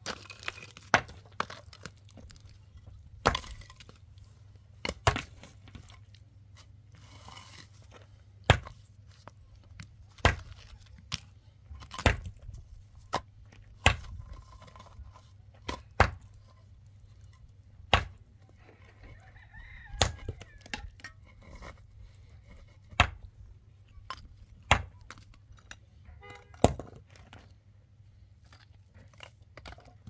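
Repeated sharp blows, some fifteen or more, struck at uneven gaps of one to three seconds, like a tool striking something hard. A rooster crows once about twenty seconds in.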